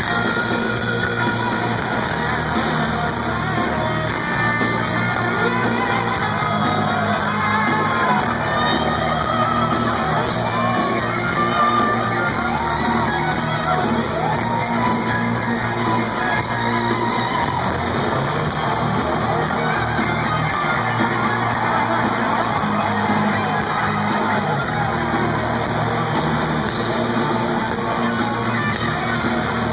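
Heavy metal band playing live in a large hall, with electric guitars, singing and crowd yelling, as heard from among the audience.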